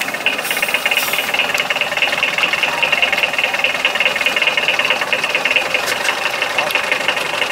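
Mercedes Unimog engine running steadily at low revs as the truck crawls over rough, rocky ground.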